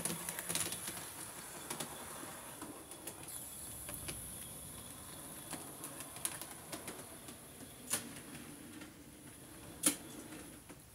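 Hornby OO-gauge Peckett W4 model shunting locomotive running along the track with a faint light whir and scattered small clicks of its wheels over rail joints and points. Two sharper clicks come near the end.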